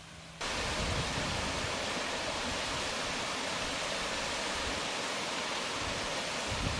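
Steady rushing of a mountain stream, starting abruptly about half a second in, with a few low rumbles near the end.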